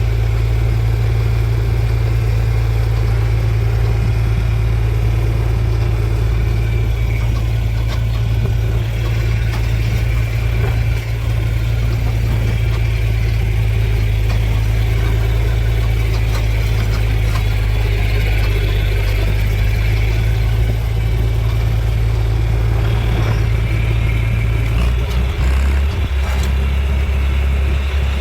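A vehicle engine running steadily at constant speed with a low hum; its note drops about three seconds before the end.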